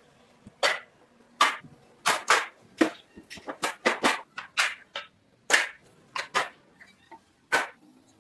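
Hand-tool blows on wood in the workshop: about twenty sharp knocks at an uneven pace, some in quick pairs.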